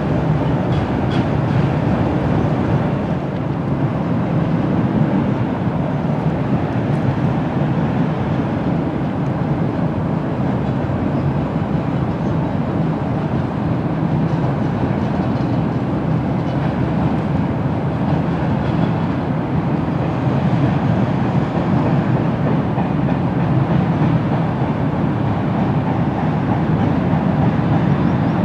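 Freight train rolling past on the rails, a steady rumble of wheels and cars that grows slightly louder near the end.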